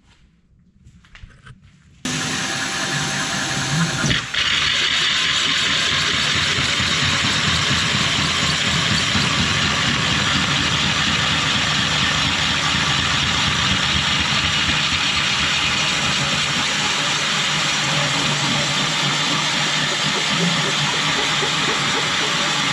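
Cordless drill turning a hole saw as it cuts into a ceramic wall tile: a steady grinding that starts abruptly about two seconds in, dips briefly once, then runs on evenly.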